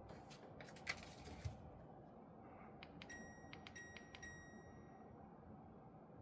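Several sharp clicks, then three short electronic beeps from a wall-mounted air conditioner's indoor unit, each starting with a click, the last held a little longer: the unit acknowledging button presses on its remote control.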